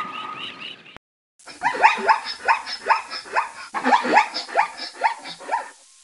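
Zebra barking: a rapid run of yelping calls, each sliding down in pitch, about two or three a second. The calls begin after a brief silence about a second in and come in two bouts.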